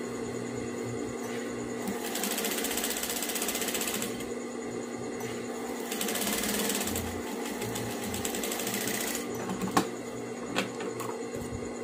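Industrial lockstitch sewing machine stitching a seam through fabric in two runs of two to three seconds each, a fast, even needle clatter. A few sharp clicks come near the end.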